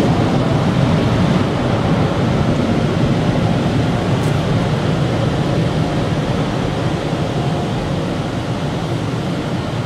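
Steady rushing, rumbling noise inside a car's cabin, slowly fading.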